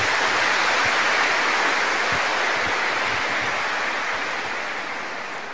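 Large audience applauding; the clapping is loudest about a second in and slowly dies away.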